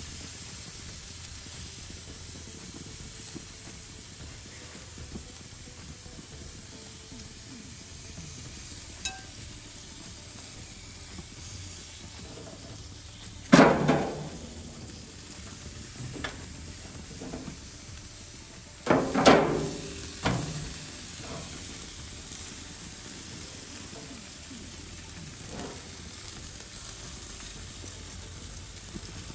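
Jerk chicken sizzling steadily as it cooks over the heat. Two loud sharp knocks about 13 and 19 seconds in, with a smaller one just after the second.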